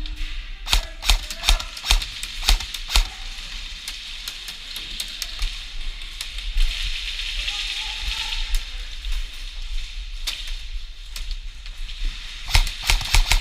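Airsoft guns firing: sharp snapping shots come in irregular strings in the first few seconds and again near the end, with scattered single shots between, over a steady hiss.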